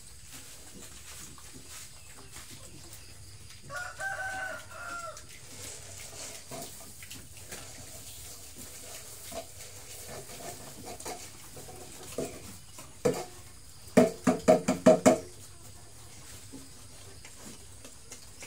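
Farmyard animal calls over piglets feeding at a trough: one drawn-out call about four seconds in, and a quick run of about six loud, short calls a few seconds before the end.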